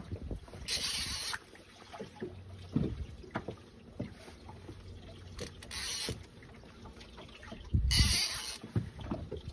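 Gusts of wind buffeting the microphone in three bursts, the strongest about eight seconds in, over water slapping and lapping against a small boat's hull, with small knocks scattered throughout.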